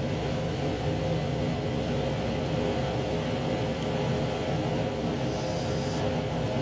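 Steady running noise of a JR Shikoku 2700 series diesel limited express train heard from on board: an even rumble with a constant hum.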